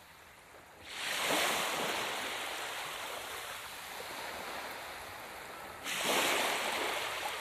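A rushing noise, like a whoosh sound effect for an animated title, that swells in about a second in, eases slightly, and swells again near six seconds.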